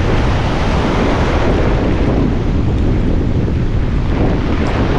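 Strong onshore wind buffeting the microphone steadily, over surf from a big swell breaking on the shore.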